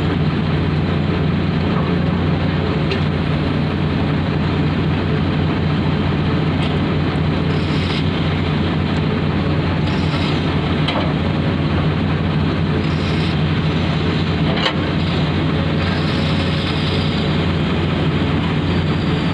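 Heavy diesel engines of a Komatsu 450 excavator and an Eicher tipper truck running with a steady low drone while the excavator loads the truck, with a few short louder rushes of noise in the second half.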